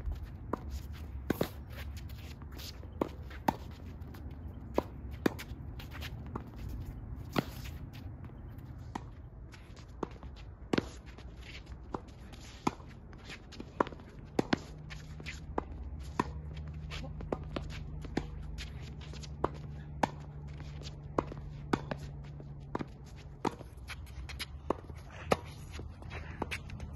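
Tennis rackets hitting a ball back and forth in a quick volley exchange: sharp pops coming about every half second to a second, over a low rumble of wind or distant traffic.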